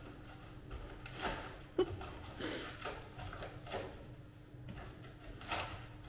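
Cured expanding foam being trimmed off the back wall of a large glass tank: irregular scraping and rustling strokes, with one sharp click about two seconds in.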